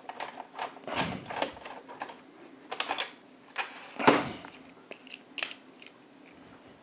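Small metal clicks and scrapes from a screwdriver bit working a recessed screw in a projector's metal chassis, loosening it, with irregular sharp ticks spread through the few seconds.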